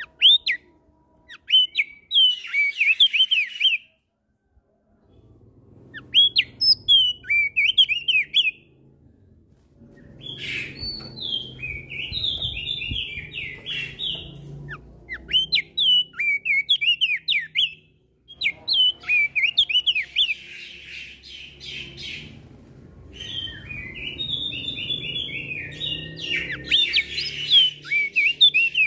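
Crested white-eye (opior jambul) singing rapid, choppy chirping phrases, trading song with other birds, in five bouts with short pauses between. A faint low rumble lies underneath.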